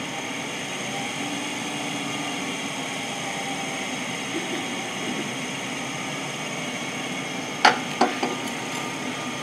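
Wood lathe running steadily with a wooden blank spinning, set to about 1,000 rpm. Near the end come two sharp knocks as the turning tool is laid against the metal tool rest.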